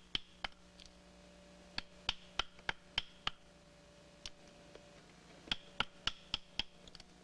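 Knife blade chopping into a wooden stick: sharp knocks in runs of about three a second, each with a brief metallic ring.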